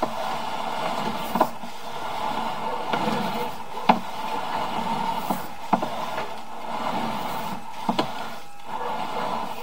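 Sewer inspection camera's push cable being pulled back through the drain line: a steady rubbing scrape with a few sharp clicks and knocks.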